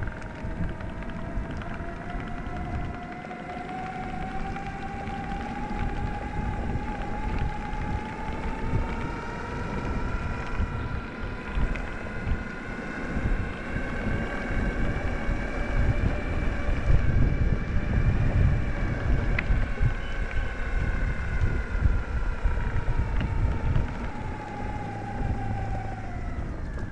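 Electric skateboard motors whining, the whine rising in pitch as the board speeds up, holding steady, then falling near the end as it slows, over the rumble of the wheels on rough off-road ground.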